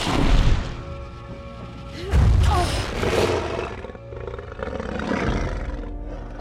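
A film dragon roaring twice, about two seconds apart, the second roar longer, over a dramatic orchestral score.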